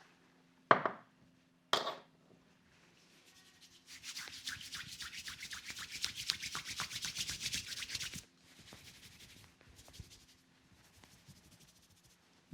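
Hands working over a head in a head massage: two loud smacks about a second apart near the start, then about four seconds of fast, rhythmic rubbing over the hair and scalp at roughly seven strokes a second, tailing off into a few softer rubs.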